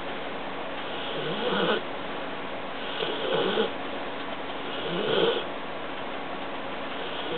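A sleeping mastiff snoring: three snores about two seconds apart, the one near the end the loudest.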